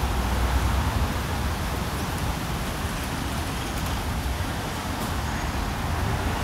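Steady traffic noise with a low rumble at the airport terminal curb.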